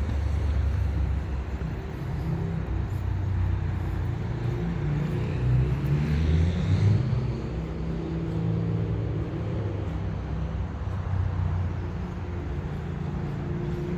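Steady low rumble of highway traffic, swelling briefly about six seconds in as vehicles pass.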